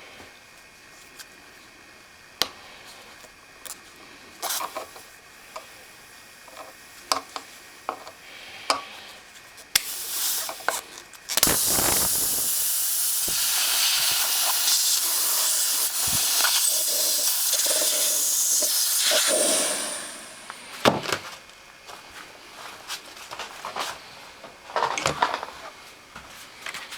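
Compressed air hissing steadily for about eight seconds, between scattered clicks and knocks of parts being handled.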